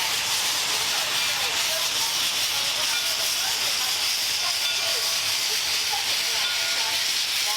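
Steady hiss of steam escaping from Cass Scenic Railroad #2, a Lima-built Shay geared steam locomotive, holding an even level throughout.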